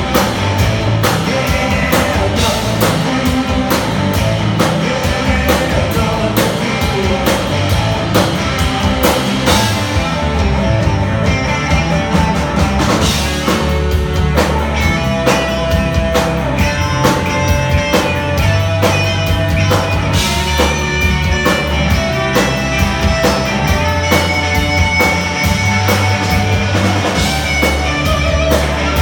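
Rock band playing live: electric guitars, bass and drum kit, with a sung vocal.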